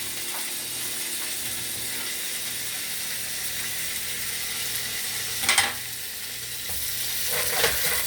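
Split hot dogs sizzling steadily in hot grease in a pan on medium-high heat. A single sharp clack about five and a half seconds in, then quick clicks of a utensil against the pan near the end.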